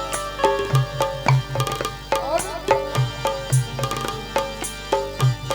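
Instrumental interlude of a Hindi folk song: a steady hand-drum beat under a melody of held and sliding notes, between sung lines.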